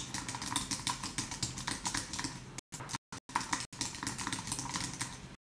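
Fast typing on a computer keyboard: a rapid run of key clicks, broken by a few brief pauses in the second half.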